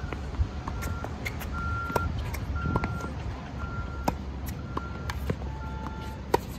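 Tennis rally: a string of sharp racket-on-ball strikes and bounces about every second, the ball going back and forth between two players. Behind it a vehicle's reversing alarm beeps about once a second, a single high beep that is joined near the end by a lower alternating beep.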